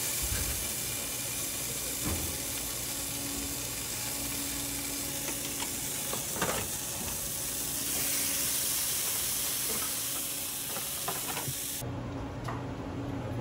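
Wagyu beef patty sizzling on a wire rack in a sheet pan in a hot commercial oven, a steady hiss. A few sharp metal clicks come from tongs on the tray, the clearest about halfway through. The sizzling cuts off shortly before the end.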